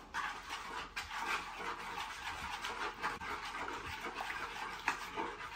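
Wooden fork scraping and swishing around the bottom of a wooden salad bowl, stirring a thin oily dressing in quick, continuous strokes with small clicks.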